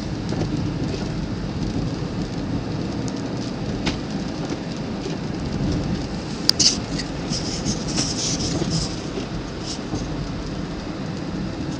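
Steady low road rumble and tyre noise of a car driving on a snowy, icy road, with scattered high ticks and crackles; a sharp crackle about six and a half seconds in is the loudest sound.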